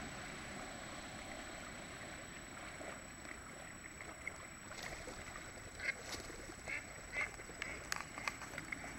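Water sloshing as someone wades through shallow lake water. From about three seconds in there is a run of short waterfowl calls, several in quick succession near the end.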